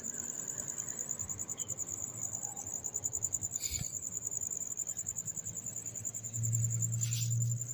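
Crickets chirping in a steady, rapidly pulsing high-pitched trill, with a single knock about three and a half seconds in and a low hum over the last second or so.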